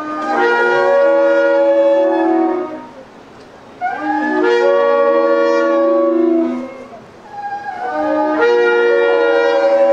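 Several shofars blown together in three long blasts of about three seconds each. Their notes overlap at different pitches, and each blast rises into its note at the start.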